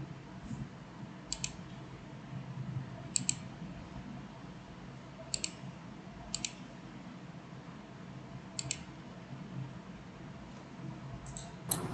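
Computer mouse clicking: about seven short, sharp double clicks spaced one to two seconds apart, over a low steady hum.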